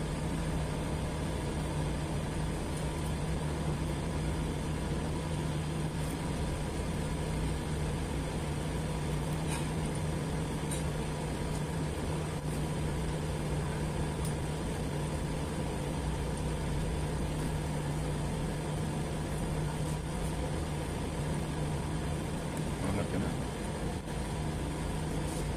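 Steady low machine hum with a constant low tone and no change in level.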